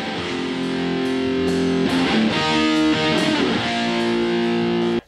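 Recorded electric guitar part playing sustained chords through a compressor, getting gradually louder as the compressor's make-up gain is raised after heavy gain reduction. Playback stops suddenly near the end.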